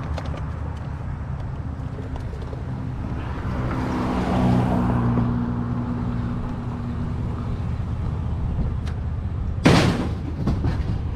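A vehicle engine idling with a steady low hum, while a broader rushing sound swells and fades about four seconds in. A short, loud burst of noise comes near the end.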